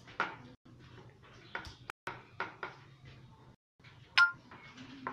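Metal objects knocking and clinking several times, with one loud ringing clink about four seconds in.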